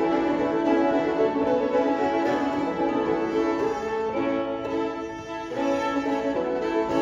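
Two fiddles playing an old-time fiddle tune in unison with banjo accompaniment, the level dipping briefly about five seconds in.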